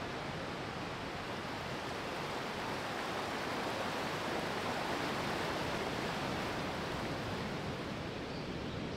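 Steady rush of flowing creek water, swelling a little mid-way.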